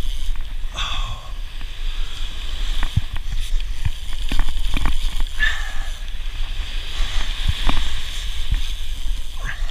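Surf washing on the beach, with scattered sharp clicks and knocks from a heavy two-speed conventional reel being cranked against a hooked shark.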